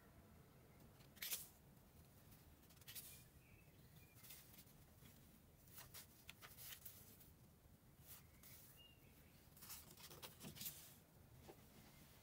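Near silence: faint room tone with about eight short, sharp clicks scattered through it and a few faint high chirps.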